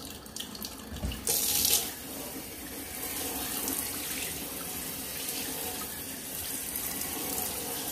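Cold water running from a kitchen tap through sorrel in a plastic colander into a stainless steel sink: a steady rush, briefly louder about a second and a half in.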